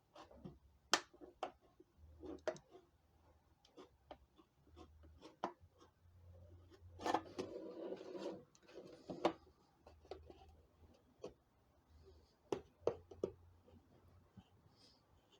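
X-Acto knife cutting into a container, with scattered clicks and ticks as the blade and the material are worked, and a longer stretch of scraping about seven to eight and a half seconds in.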